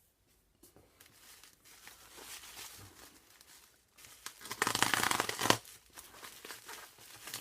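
Packaging being handled and torn open: soft crinkling and rustling, with one loud tearing sound lasting about a second, a little past the middle.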